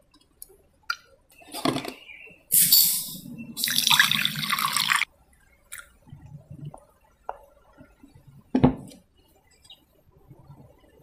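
Milky liquid poured from a jug into glass cups, in two splashing pours of a second or so each. A single sharp knock follows near the end, with a few faint clicks.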